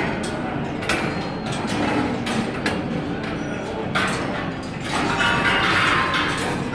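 Balls rolling and clacking along the metal wire tracks of a large rolling-ball sculpture. Scattered sharp clicks and knocks over steady background noise, becoming a denser clatter late on.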